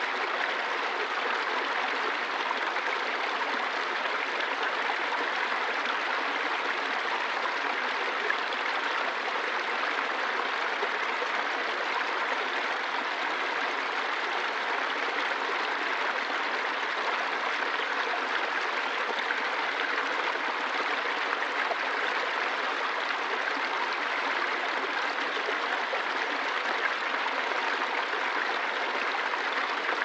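Small woodland brook pouring steadily over a low rock ledge into a shallow pool: an even, unbroken splashing of running water.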